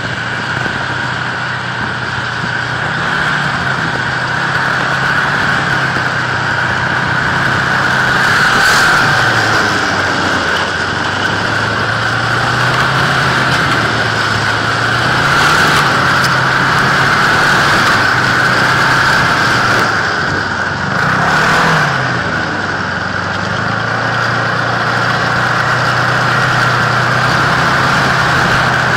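Ski-Doo 600 ACE snowmobile's three-cylinder four-stroke engine running under way, its pitch rising and falling three times as the throttle is worked. A steady high whine runs over the engine note.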